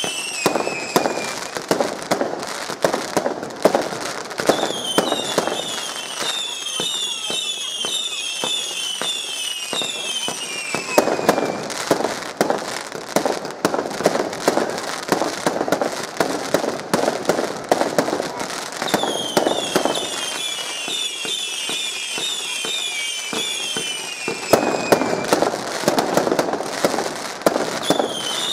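Fireworks display: volleys of whistling fireworks, many whistles at once, each falling in pitch, over continuous crackling and popping from bursting shells. The whistles come in three or four bunches, and the crackling is densest in between.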